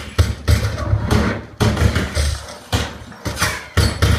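A movie soundtrack playing loud through a 5.2-channel JBL Synthesis home-theatre system with two subwoofers: a run of about seven sudden, bass-heavy hits or booms, each dying away before the next.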